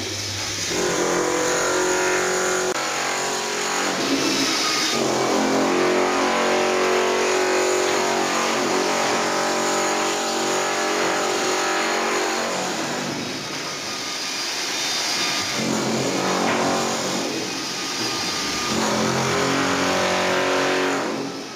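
Electric drill motor whining, its pitch sliding down and climbing back up several times as it slows and speeds up again.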